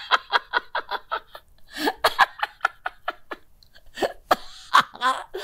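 An older woman laughing in rapid, repeated pulses, in several bouts with short pauses between.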